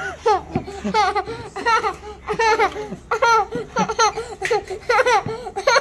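Young child laughing in a run of short, high-pitched laughs, two or three a second, while being played with.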